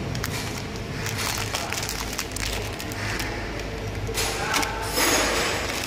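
Plastic film wrapped around bundles of dried noodles crinkling and rustling as they are handled, over a steady low machine hum.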